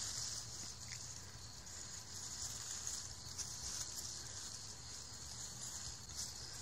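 Steady high-pitched chorus of night insects, with faint rustling of leafy ground cover as a leashed cat walks through it.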